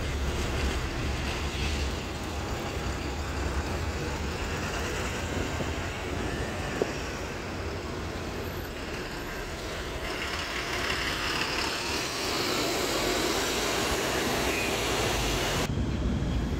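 Buses and street traffic: a low diesel engine rumble at first, with the traffic noise growing louder from about ten seconds in.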